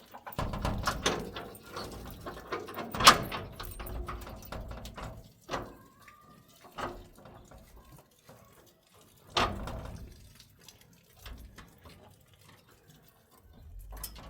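Scattered knocks and thuds, as of objects being handled, with the loudest about three seconds in and another strong one about nine and a half seconds in.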